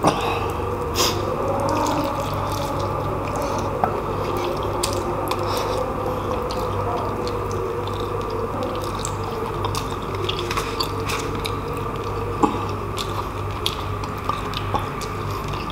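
A man chewing braised pork leg (humba) with his mouth close to the microphone, with scattered wet clicks and smacks, over a steady low hum.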